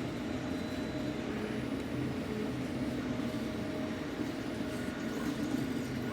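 Steady low background hum with no distinct sounds standing out.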